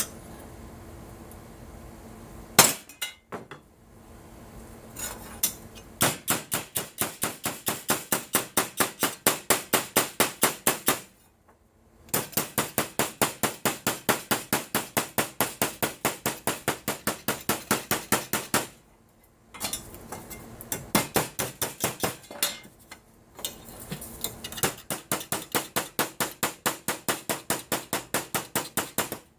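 Light hammer tapping on aluminum sheet in quick, even runs of about four blows a second, with two short pauses. A single louder knock comes near the start.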